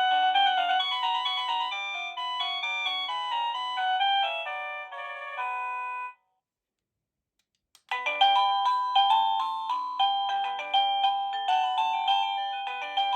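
Avantek wireless doorbell receiver playing its electronic chime melodies, one of its many selectable tunes. One tune ends about six seconds in, and after a short silence a different tune starts about two seconds later.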